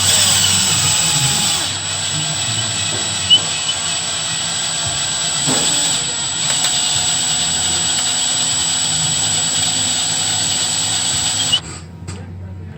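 Power drill running steadily with a left-hand bit, drilling into a broken EGR bolt to extract it, then stopping abruptly near the end.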